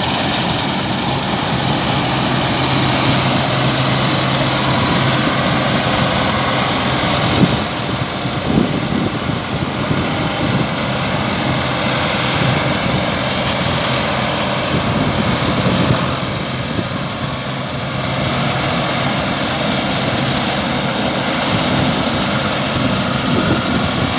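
Farm machinery engine running steadily, with a couple of sharp knocks about a third of the way through.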